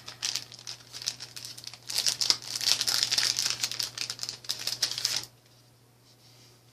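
Plastic packaging bags crinkling as they are handled and opened, a dense run of crackles that stops about five seconds in.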